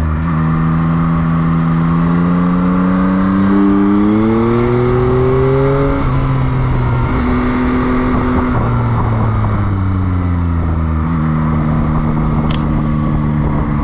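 Motorcycle engine heard from the rider's seat, rising in pitch as it accelerates for about six seconds, then dropping suddenly, and later falling again and settling to a steady pitch.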